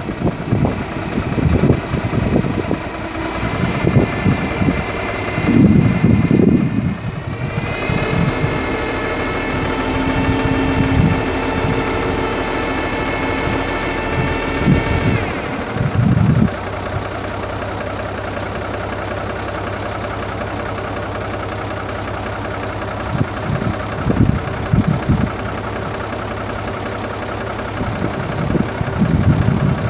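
Cummins NHC250 six-cylinder diesel engine of a 1967 Ford 850 grain truck running. Its revs rise over a few seconds with a climbing whine, hold for several seconds, then drop back to a steady idle about halfway through.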